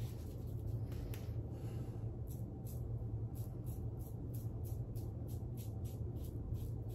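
Carbon CX safety razor with a Nacet blade scraping through stubble in short, quick strokes, about three a second, starting a couple of seconds in, over a steady low hum.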